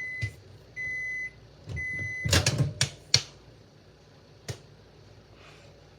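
Microwave oven beeping its end-of-cycle signal: a steady high beep about half a second long, repeated roughly once a second, three times. The beeps are followed by a quick cluster of clicks and knocks, then one more click.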